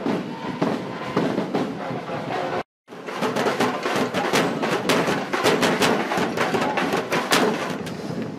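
A percussion group drumming with sticks: a fast, dense run of sharp strikes. The sound drops out briefly about a third of the way in.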